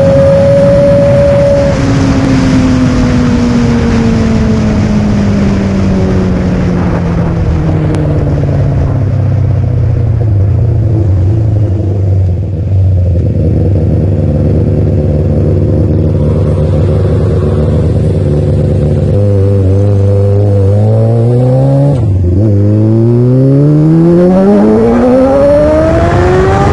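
Yamaha R6's 600 cc inline-four engine heard from the rider's seat. The revs fall slowly as the throttle closes and the bike slows, then it runs at low revs. Later it pulls away, the revs climbing, dropping sharply once at an upshift and climbing again.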